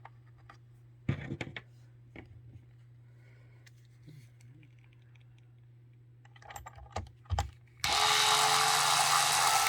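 Battery-powered screwdriver running for about two seconds near the end, driving down a screw on the mixer's cord-retaining plate. Before it, a few light clicks of small parts being handled.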